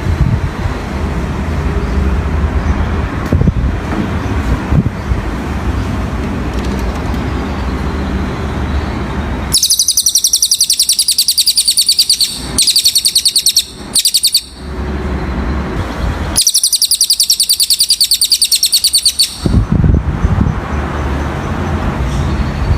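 Low, steady traffic-like rumble for the first half. About ten seconds in, a cililin songbird's high, very rapid trill breaks in loudly, in several long bursts of fast-repeated notes with short gaps. The rumble drops out during the song and returns near the end.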